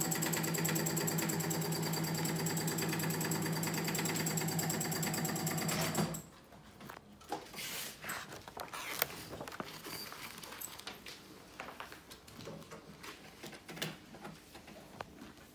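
Electric sewing machine running steadily at speed with a fast, even stitching pulse, then stopping abruptly about six seconds in. Faint paper rustling and small taps follow as sketchbook pages are handled.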